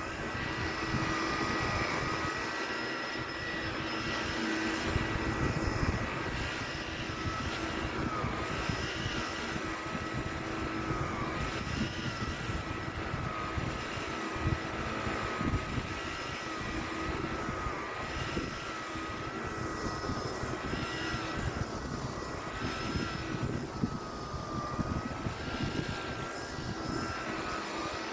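Electrolux Prolux Plus commercial vacuum cleaner running steadily over a rug, its motor whine wavering slightly in pitch as the vacuum works.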